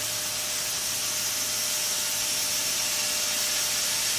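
Steady machinery noise: an even, high hiss with a faint steady hum underneath, with no distinct cuts or knocks.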